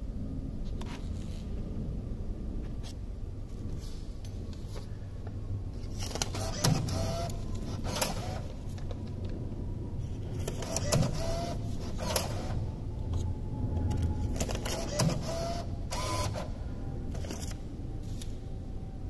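Banknote acceptor of a Bitcoin ATM drawing in paper notes: three short bouts of motor whirring with clicks, a few seconds apart, as each bill is pulled in and stacked.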